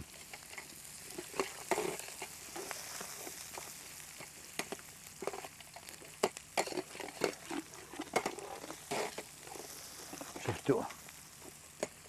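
Chopped onions and whole spices sizzling steadily in hot oil in a metal pot, with a metal ladle scraping and clinking irregularly against the pot as they are stirred.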